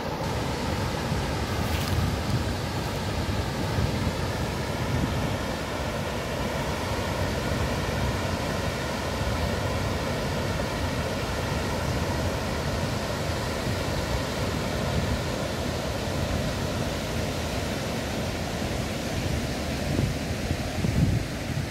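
Steady rush of water pouring over a river weir, with wind gusting on the microphone.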